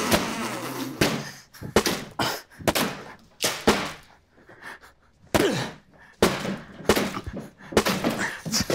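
Watermelons being smashed with a hammer: a quick, uneven series of heavy wet thunks, about a dozen blows, as the rinds burst.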